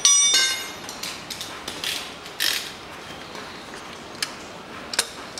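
A sharp metallic clank that rings briefly, followed by scattered clicks and a short scrape as a metal oil filter wrench is fitted around the oil filter, with two sharp clicks near the end.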